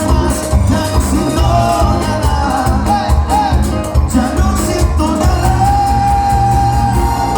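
Live cuarteto band music with singing over a steady, pulsing bass beat; a long melodic note is held in the second half.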